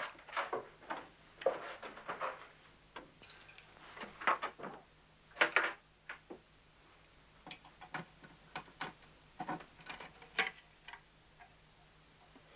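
Irregular clicks and knocks of a wooden wardrobe being opened and its hanging clothes and hangers rummaged through. There are a few louder knocks a little before the middle, then a scatter of lighter clicks.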